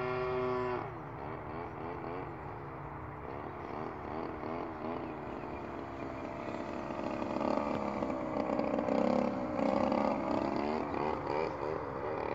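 Radio-controlled aerobatic model airplane flying overhead: its motor and propeller hold a steady pitch for under a second, then the pitch wavers rapidly up and down through the manoeuvres, growing louder for a few seconds past the middle.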